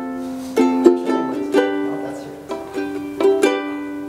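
Ukulele played in an instrumental passage: a run of strummed and plucked chords in a steady rhythm, each note ringing and fading.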